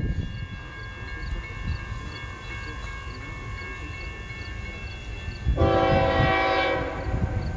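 Locomotive air horn sounding one blast of a few seconds about three-quarters of the way through. It is heard over faint steady ringing tones and soft ticks about twice a second.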